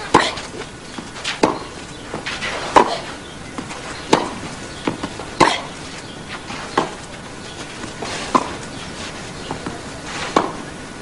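Tennis ball struck back and forth by racquets in a baseline rally on clay: eight sharp hits, one roughly every second and a half, with fainter bounces and crowd murmur between them.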